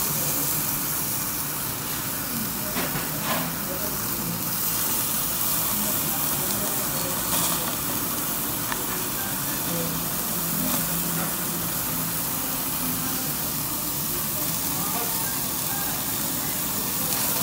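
Marinated beef kalbi sizzling steadily on a small tabletop yakiniku grill over open flame, a constant hiss of fat and marinade cooking, with a few light clicks of metal tongs against the grate.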